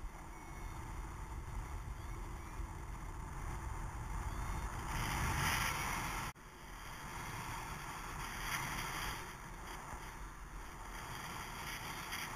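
Rushing airflow buffeting a helmet-mounted camera's microphone during paraglider flight. It swells louder about five seconds in, breaks off for an instant at about six seconds, then builds again.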